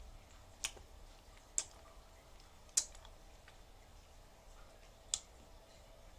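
Four sharp, separate clicks spaced irregularly over faint room tone, the third the loudest.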